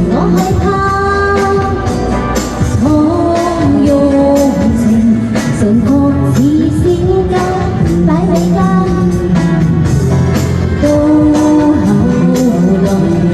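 A pop song with a woman singing over a backing track with a steady beat.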